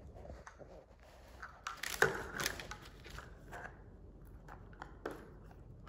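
Hard plastic capsule twisted and pried apart by hand, cracking and clicking in a burst about two seconds in, followed by a few smaller clicks.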